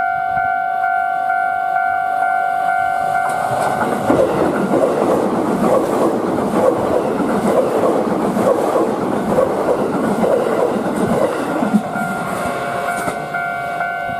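A Japanese level crossing's electronic warning bell rings over and over. About four seconds in, a Yokohama Line E233-series electric train passes, its wheels rumbling and clattering over the rail joints and covering the bell, and the bell is heard again as the train clears near the end.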